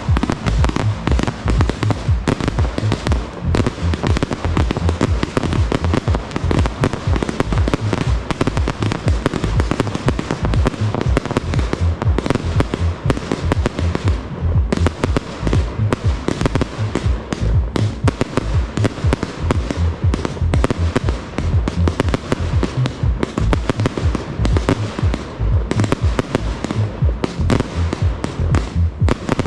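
Fireworks display: aerial shells bursting in a dense, continuous barrage of rapid bangs with a deep boom, easing for a moment about fourteen seconds in.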